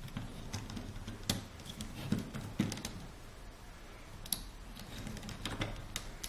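Irregular light clicks and taps of small parts of a laser-cut windup car kit being handled, as a rubber band is worked onto the back wheels.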